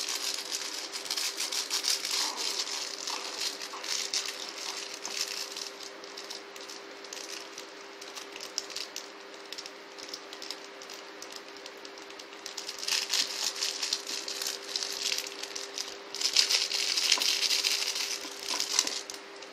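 Rapid rattling and clattering from puppies playing, in a burst at the start and another in the last several seconds, over a steady low hum.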